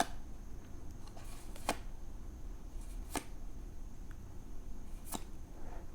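Yu-Gi-Oh! trading cards being handled and flipped through one at a time, with four faint, crisp clicks as cards are slid and moved.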